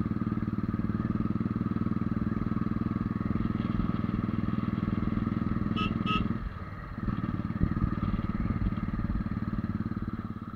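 Motorcycle engine running under steady throttle on a climb, with a pulsing beat. About six seconds in there are two short high beeps, and the engine eases off for a moment before pulling again.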